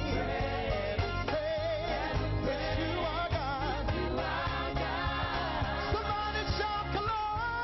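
Gospel worship song: voices singing over a band with a steady bass beat.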